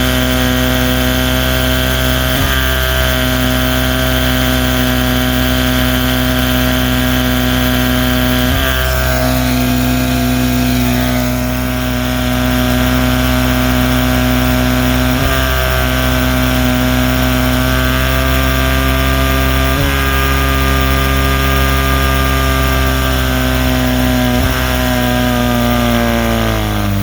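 1979 Evinrude 35 hp two-stroke outboard motor running at a steady, fairly high speed, with a brief hitch in its speed every four to seven seconds, five times in all. The owner is unsure whether the hitch is a misfire or a slipping clutch dog. Near the end the engine speed drops.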